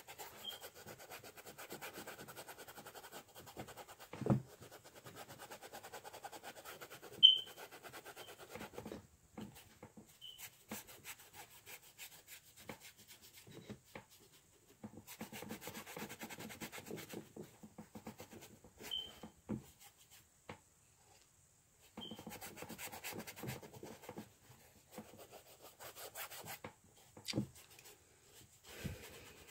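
Paintbrush scrubbing acrylic paint across a canvas in stretches of scratchy back-and-forth strokes, with pauses between them. A dull knock comes about four seconds in and a sharp click about seven seconds in.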